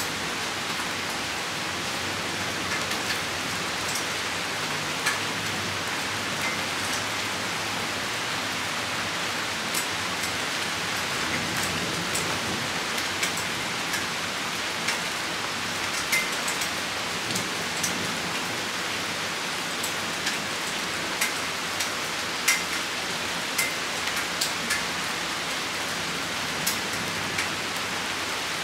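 Steady rain shower falling, with scattered nearby drops landing as sharp, irregular ticks.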